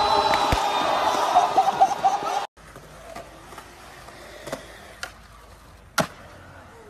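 Loud shouting and cheering from a group of people, which cuts off about two and a half seconds in. Then quieter skateboard wheels roll on concrete, with a few light clicks and one sharp clack of the board about six seconds in.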